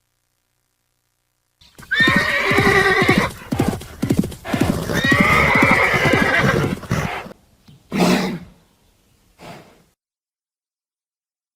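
Horse neighing: two long, loud whinnies, the second longer, then a short lower call about eight seconds in.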